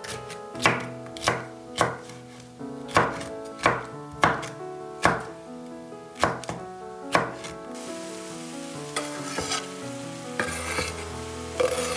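Chef's knife slicing a red bell pepper on a bamboo cutting board: about ten sharp, uneven chops. About eight seconds in, the chopping stops and a hiss of vegetables frying in a pan takes over.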